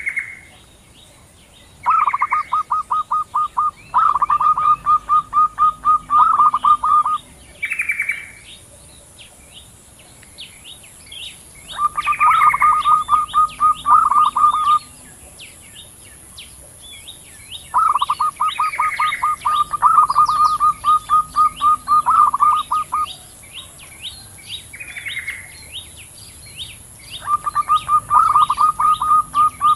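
Zebra doves (perkutut) calling back and forth. Their song comes in bouts of rapid staccato coo notes, each lasting one to three seconds and repeated about every few seconds, several of them opened by a higher sliding note. Small birds chirp faintly between the bouts over a steady high hiss.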